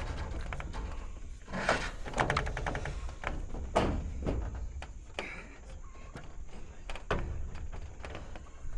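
Irregular knocks and thuds of solar panels being handled and set onto a roof rack, over a steady low rumble.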